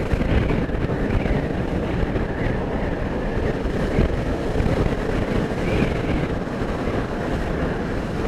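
Steady, loud rush of wind and road noise in a vehicle's cabin while driving at speed.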